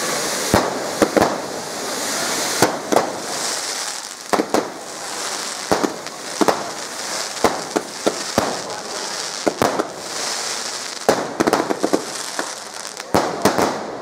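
Fireworks going off: well over a dozen sharp bangs at irregular intervals, some in quick pairs and clusters, over a steady hissing crackle.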